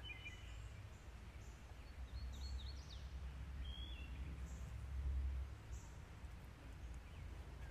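Faint outdoor ambience: a few short bird chirps and calls in the first half, over a low rumble that swells for a few seconds and then eases.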